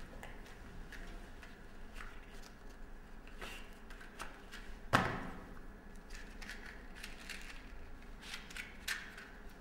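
Small handling noises from a cigarette packet being opened and a cigarette taken out: light clicks and cardboard rustles, with one sharper knock about five seconds in.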